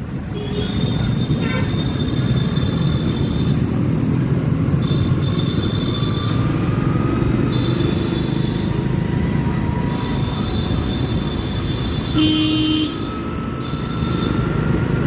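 Busy city street traffic heard from a moving motorcycle: steady engine and road rumble, with a vehicle horn honking briefly near the end.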